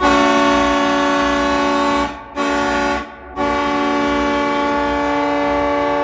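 Kleinn 730 air horn sounding a chord as a hockey goal horn, signalling a home goal: a blast of about two seconds, a short blast, then a long blast.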